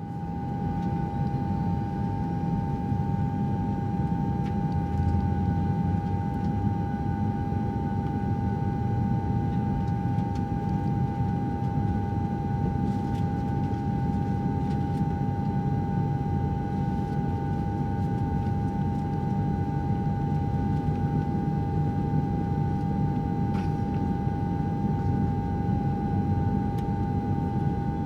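Airplane cabin noise: a steady, dense low rumble with a constant high-pitched whine above it, and a few faint ticks scattered through.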